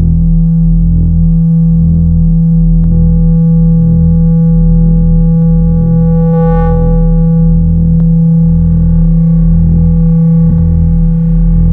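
Electronic synthesizer jam: a steady low drone with a bass that pulses under it, LFO-modulated. A higher tone with its overtones swells and fades about six and a half seconds in, over a few faint ticks.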